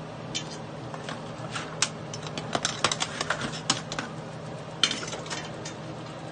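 Metal kitchen tongs clicking and clacking against boiled crab shells, a steel stockpot and a metal sheet pan as cooked crabs are lifted out and set down, in a scatter of sharp knocks, with the loudest about two seconds in and about five seconds in. A steady low hum runs underneath.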